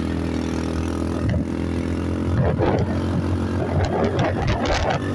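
ATV engine running at a steady pitch. From about halfway through, scratchy noise rides over it.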